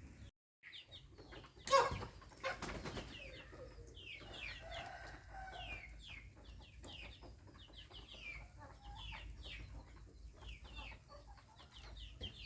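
Birds calling: many short, high, downward-sliding chirps in quick succession throughout, with a single sharp clack about two seconds in.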